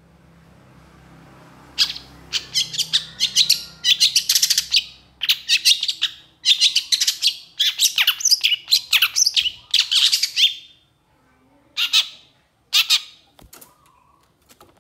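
Caged long-tailed shrike in full song. A long run of rapid note bursts starts about two seconds in and goes on for some eight seconds, and after a pause two short bursts follow near the end.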